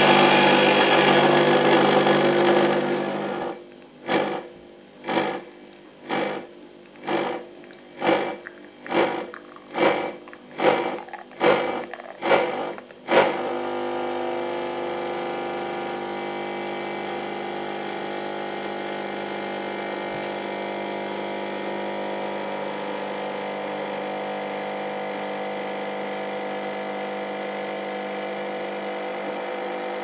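Gaggia Classic espresso machine's pump pulling a double espresso shot: a loud steady buzz for the first few seconds, then about ten short pulses that come faster and faster, then a steady, quieter hum while the shot pours.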